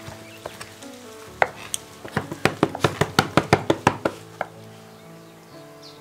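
Knife chopping roast chicken on a wooden cutting board: a single strike, then a quick run of strikes at about six a second that stops about four seconds in. Soft background music plays under it.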